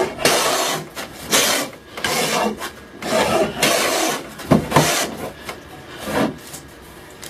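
Hand plane being pushed along a wooden frame piece in about half a dozen rasping strokes, roughly one a second, shaving off wood; the strokes stop about six seconds in.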